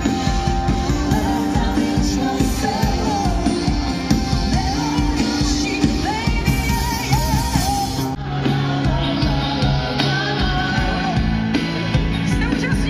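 Pop-rock song with a singer, played loud over a large open-air concert sound system, with a brief dip about eight seconds in.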